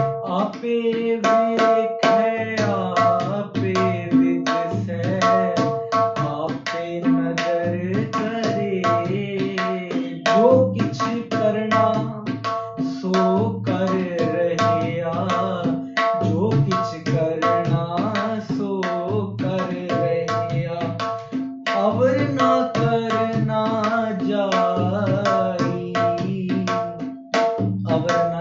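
Tabla played in a fast, continuous rhythm: quick strokes on the small right-hand drum and pulsing bass strokes on the left-hand drum, with a melody sounding alongside.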